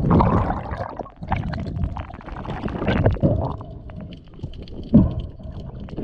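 Muffled underwater rumbling and gurgling of water moving around a submerged camera, with a few knocks, the loudest about five seconds in.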